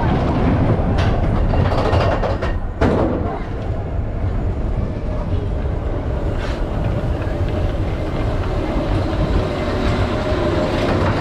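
Expedition Everest's Vekoma steel roller coaster train running on its track as it climbs the lift hill: a steady rumble with a few sharp clacks, about one, three and six and a half seconds in.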